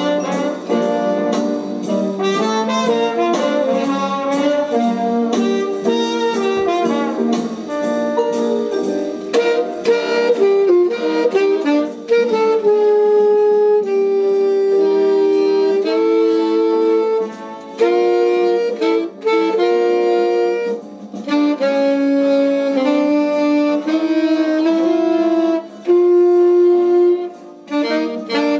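Busy jazz music with many quick notes. From about twelve seconds in, an alto saxophone and a straight soprano reed instrument play long held notes together in two-part harmony, with short breaks between phrases.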